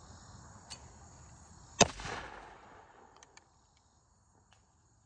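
A single shot from a black-powder muzzleloader shotgun about two seconds in, sharp and loud, followed by a rolling echo that dies away over about a second. A steady chirring of crickets runs underneath.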